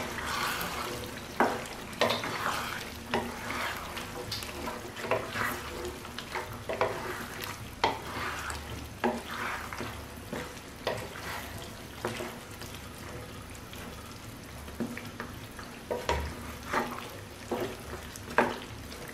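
Wooden spatula stirring and scraping mutton curry in an oiled non-stick pan, with repeated scrapes about one or two a second over the steady sizzle of the meat frying in oil.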